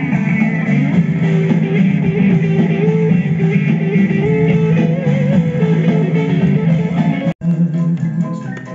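Guitar-led rock music playing back from the Sharp VZ-3000's cassette deck, a TDK FE 90 tape with Dolby noise reduction switched on. The music drops out for an instant near the end.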